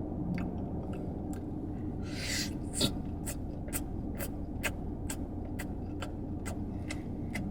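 Steady low hum with a short rustle about two seconds in, then a regular ticking of about two clicks a second.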